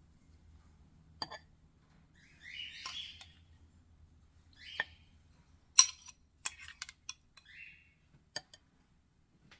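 Utensil clinking and scraping against a dish while a trifle is layered: scattered sharp clinks, the loudest a little before the six-second mark, between short scraping sounds.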